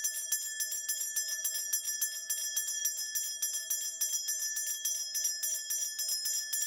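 A cluster of shaman's bells shaken continuously in a fast, even rhythm of several shakes a second, with a steady jingling ring.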